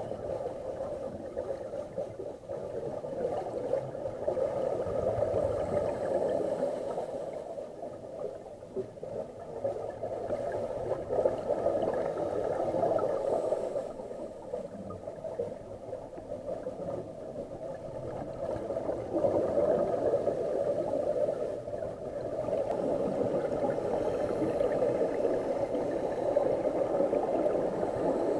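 Muffled underwater noise heard through a camera's waterproof housing, with the bubbling of scuba divers' exhaled regulator bubbles. It swells and fades every few seconds.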